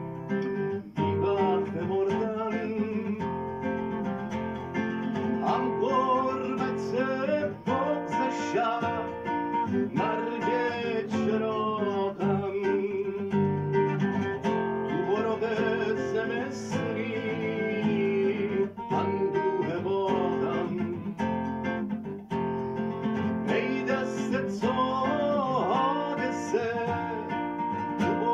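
Classical guitar played solo, a melody picked over chords, continuing without a break.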